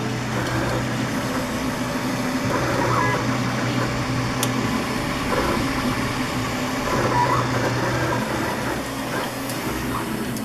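Home-built enclosed 3D printer running a print: a steady hum, with short whining chirps every second or two as its motors move the print head.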